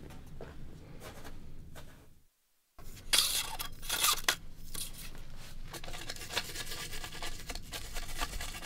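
A brush on a long pole scrubbing the rock of an overhanging boulder: a run of quick scraping strokes. The strokes are strongest just after a brief dropout, and fainter scuffs come before it.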